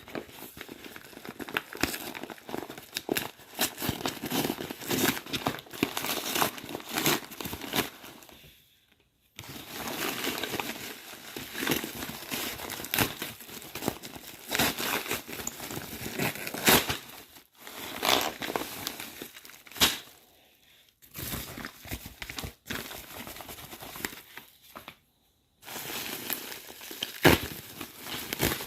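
A parcel of Lego parts being unpacked by hand: packaging crinkling, rustling and tearing, with sharp clicks mixed in and a few short pauses.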